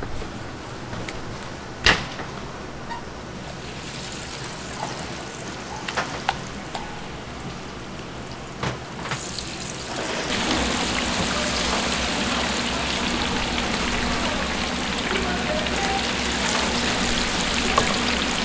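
Clicks and knocks of kitchen handling, then about ten seconds in a loud, steady sizzle of chicken frying in a cauldron of hot oil starts suddenly and holds, with a low steady hum beneath it.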